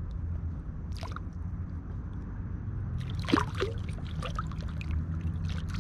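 Steady rush of river water, with a run of short clicks and rustles in the second half.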